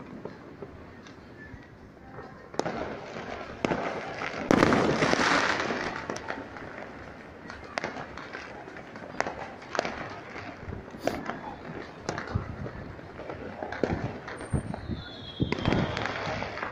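Fireworks and firecrackers going off: scattered sharp bangs and pops throughout. A loud crackling burst comes about four and a half seconds in and lasts a second or two, and a short falling whistle sounds near the end.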